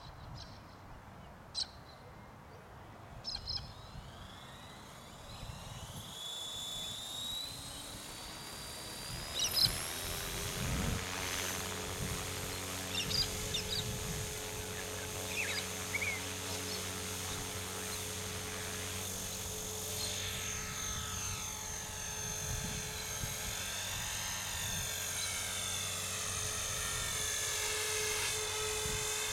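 Blade Fusion 360 electric RC helicopter spooling up: the motor whine rises in pitch over several seconds, then the rotor settles into a steady buzz. In the second half its pitch wavers up and down as it flies.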